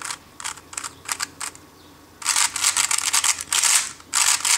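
3x3 speedcube being turned: a few separate clicks, then from about two seconds in two quick runs of rapid clacking layer turns, a PLL algorithm executed at speed.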